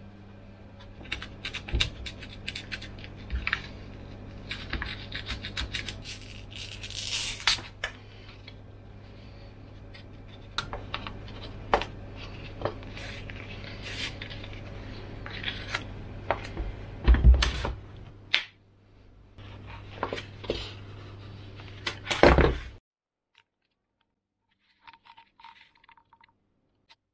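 Hands handling a small brushless motor's wires and an EPP foam fuselage on a wooden bench: scattered clicks, scrapes, rubbing and a few louder knocks over a steady low hum. Near the end it goes almost silent.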